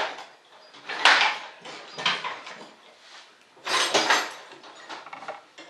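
Clattering and knocking of tools or small hardware being handled and set down, in about four separate bursts roughly a second apart.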